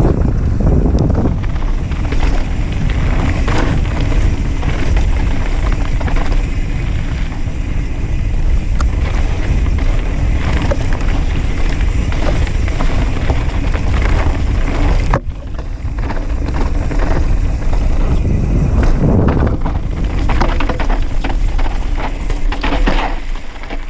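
Wind buffeting the microphone over the rumble and rattle of a YT Industries Capra AL Comp 2019 mountain bike descending a dirt trail at speed, with its tyres on dirt and small knocks and clatter from the bike over bumps and stones. About fifteen seconds in the noise drops away for a moment, then returns.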